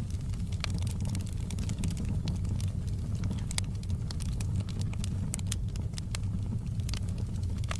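Wood fire in a fireplace crackling, with frequent irregular sharp snaps and pops over a steady low rumble.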